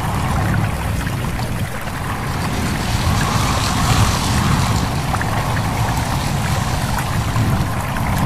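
Stream water babbling steadily, mixed with wind, over a continuous low rumble.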